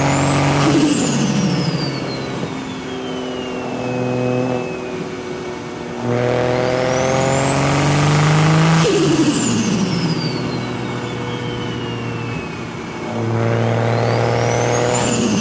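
Single-turbo BMW N54 straight-six revved in three pulls: each time the turbo whine climbs steeply to a high peak, then, as the throttle closes, the turbo flutters and the whine falls away as it spools down. One pull is already peaking as the sound begins, another builds from about six seconds in, and a third peaks near the end.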